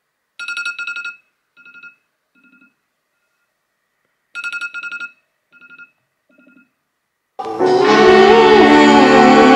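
iPhone alarm ringing: a short ringing phrase sounds twice, about four seconds apart, each followed by two fainter, echoing repeats. Loud background music comes in about seven seconds in.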